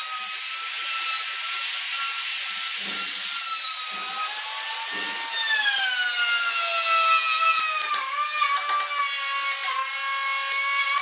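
Handheld trim router running, a high motor whine with a cutting hiss as it routs a mortise into the hardwood edge of a door. About halfway through, the cutting noise falls away and the motor runs on by itself, its pitch dipping slightly, with a few light clicks near the end.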